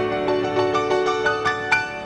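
Grand piano played solo: a quick run of single notes, about six or seven a second, climbing in pitch over a sustained lower note.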